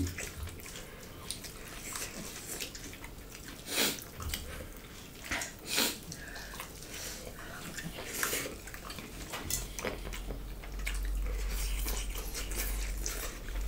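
Close-up wet chewing and lip-smacking of two people eating rice and pork with their hands, with a few louder smacks. A low hum comes in about two-thirds of the way through.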